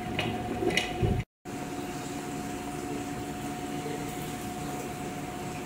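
Water running from the hot-water tap of an earth stove's built-in tank into a thermos flask. After a cut about a second in, a steady stream of water is poured from a stainless steel basin into the stove's water tank to refill it.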